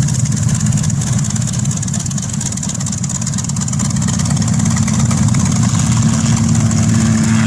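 North American T-28 Trojan's radial engine and propeller running steadily at low power while the aircraft taxis, a deep, even, pulsing drone.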